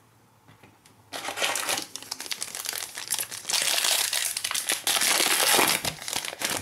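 Foil wrapper of a 2017-18 Panini Prizm Fast Break basketball card pack crinkling as it is handled and opened by hand. The crinkling starts about a second in and is loudest in the middle.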